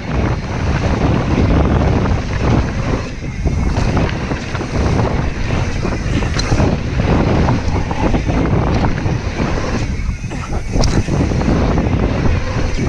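Wind buffeting the microphone of an action camera on a mountain bike riding fast down a gravel trail. Under it the tyres rumble and crunch over the loose surface, and the bike rattles over bumps.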